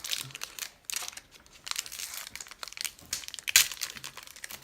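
Trading card pack wrapper being torn open and crinkled by hand: irregular crackling and rustling, with the sharpest crackle about three and a half seconds in.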